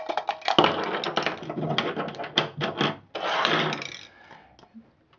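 Small sharp scissors snipping through the thin aluminium wall of a drink can, the metal crackling and crinkling with each cut, in a rapid irregular run of clicks. A longer crinkling rustle follows about three seconds in, lasting under a second.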